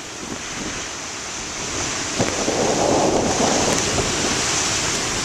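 Storm-driven ocean surf breaking and rushing, with wind on the microphone. The rush of a wave swells louder about two seconds in.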